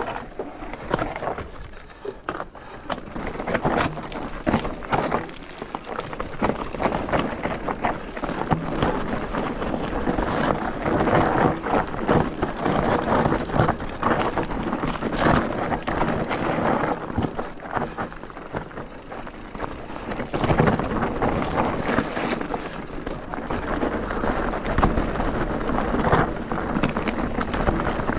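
E-bike ridden over rough ground: tyre noise and frame rattle, full of small knocks and jolts, with wind buffeting the microphone.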